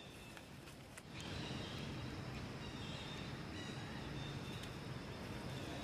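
Outdoor ambience: a steady low rumble with faint high chirping over it, becoming louder about a second in. A few soft clicks come before that.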